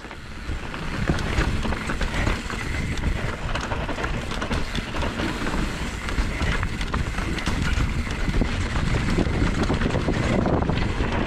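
A moving vehicle, heard as a steady rumble, with wind buffeting the microphone.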